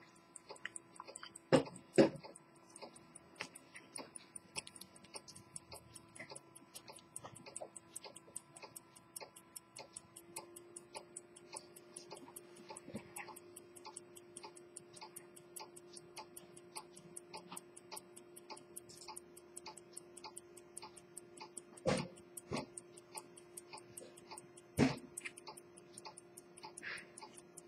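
Early-1900s Swiss quarter-repeater pocket watch ticking fast and evenly, its balance beating several times a second. A few louder clicks and knocks from the case being handled stand out, twice about two seconds in and twice more near the end.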